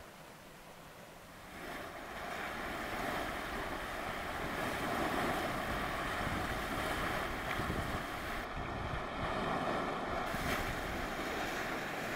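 Churning, steaming hot spring surging and boiling: a steady rushing water noise that swells up about a second and a half in, with wind buffeting the microphone underneath.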